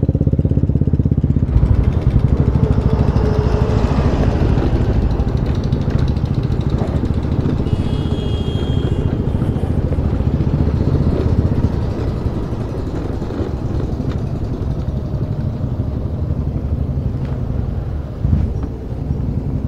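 Yamaha Ray ZR scooter's engine running under way, with wind rumbling on the handlebar-mounted microphone; the sound drops somewhat about twelve seconds in as the scooter slows in the lot. A brief faint high tone sounds about eight seconds in.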